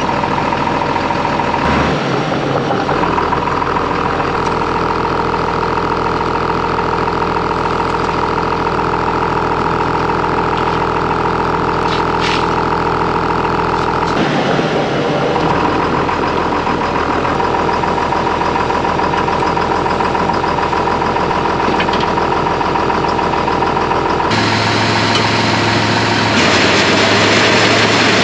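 John Deere 6510 tractor's diesel engine idling steadily, heard close up from its front-end loader, its note shifting slightly a few times. A brief sharp sound about twelve seconds in.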